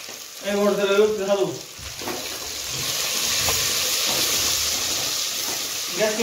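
Food frying in oil in an aluminium pot on a gas stove, sizzling with a steady hiss while a steel ladle stirs it. The sizzle grows louder about two seconds in.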